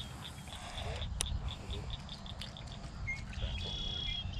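Crickets chirping in a steady rhythm, about four high chirps a second, with wind rumbling on the microphone. A single sharp click comes about a second in, and a short high trill sounds near the end.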